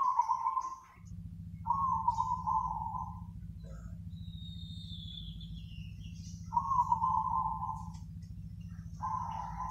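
Zebra dove cooing: four rolling, stuttering coo phrases, each about a second long, with gaps between them. A thin falling whistle from another bird sounds in the middle, and a steady low hum runs underneath from about a second in.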